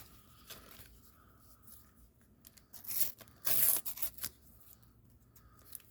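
Paper stickers and their packet being handled, with a few short tearing, rasping sounds; the loudest comes about three and a half seconds in.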